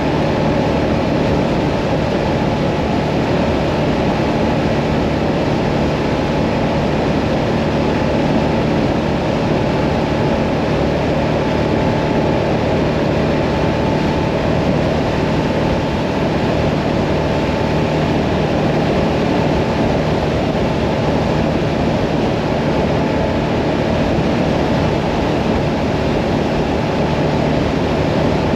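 Hyosung Mirage 650 cruiser's V-twin engine running at a steady cruising speed, with an even rush of wind and road noise. Engine pitch and loudness hold steady throughout, with no shifting or revving.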